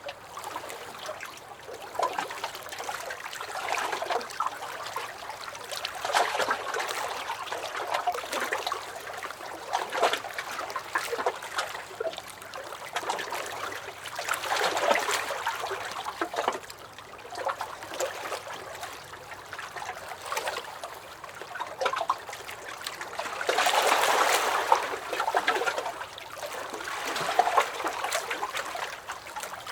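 Small lake waves lapping and sloshing against a dock, in uneven swells every few seconds, with small splashes and drips. The biggest slosh comes near the end.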